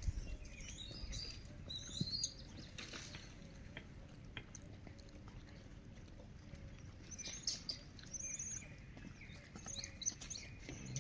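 Small birds chirping on and off with short high chirps: a cluster in the first couple of seconds, another around seven to eight seconds in, and more near the end. A few faint ticks come between them.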